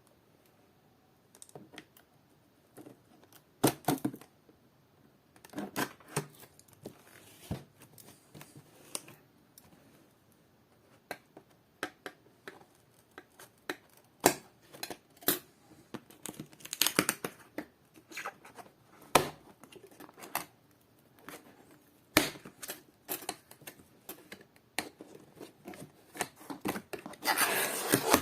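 Cardboard box and plastic packaging being handled and opened: scattered knocks, clicks and scraping, with a longer stretch of rustling near the end.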